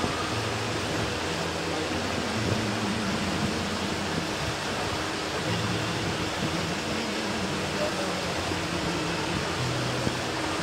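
Steady rushing noise aboard a moving river tour boat: its engine running and water streaming past the hull.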